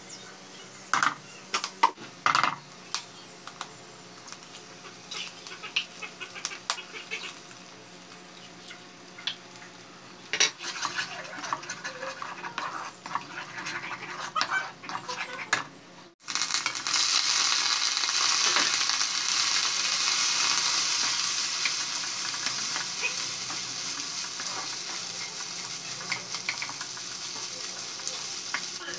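A wooden spatula stirring food in a hot black kadai on a gas stove, with scattered knocks and scrapes against the pan. After a sudden break about halfway, a loud steady sizzle of frying starts and slowly fades.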